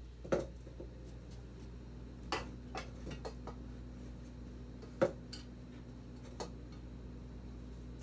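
A pot of sugar, Jell-O and corn syrup heating on a gas burner toward the boil: scattered light ticks and pops at irregular intervals, the sharpest about five seconds in, over a steady low hum.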